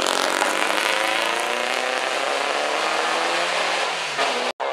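Open-wheel single-seater race car's engine running under load, its note falling steadily in pitch as the car moves away. The sound cuts out abruptly near the end.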